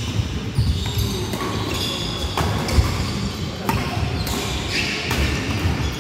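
Badminton rally: rackets striking a nylon shuttlecock several times in quick exchanges, with short shoe squeaks on the wooden court floor, echoing in a large hall.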